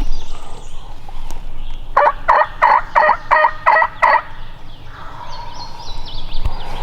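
A wild turkey gobbling once: a rapid rattling gobble of about seven quick pulses lasting about two seconds, starting about two seconds in.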